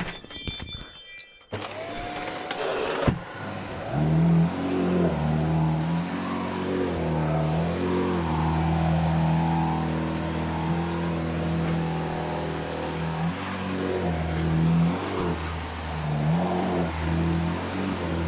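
Shark Lift-Away NV601UKT upright vacuum cleaner switched on about a second and a half in, its motor winding up with a rising whine, then running with a steady rush of air and a low hum whose pitch wavers.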